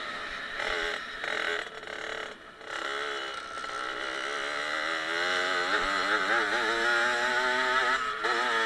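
Suzuki RM65 small two-stroke dirt bike engine, heard from the bike itself while riding. The revs drop briefly about two seconds in, then climb back and waver up and down as the throttle is worked, with a short break near the end.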